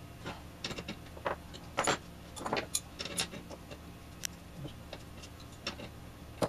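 Irregular light clicks and taps of small parts being handled and refitted at the front dial of a B&K Precision E-200D RF signal generator, about a dozen separate clicks.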